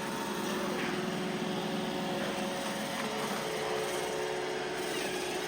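iRobot Roomba robot vacuum running steadily, a constant motor hum and whir with a few light clicks.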